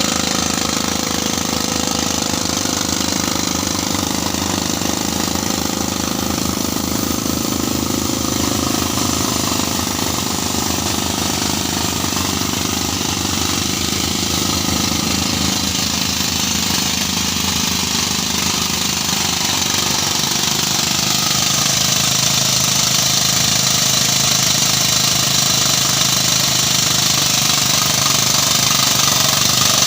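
Drill machine running continuously with a fast, even hammering rattle, its pitch drifting a little lower and back up as the load changes.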